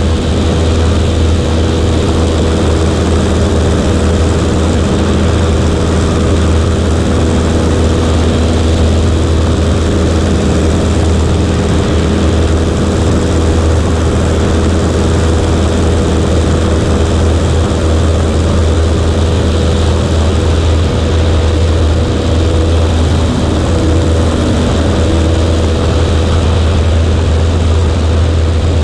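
Cessna 140A's single piston engine and propeller, a steady unbroken drone. A strong low hum lies under it, and its pitch holds constant with no change in power.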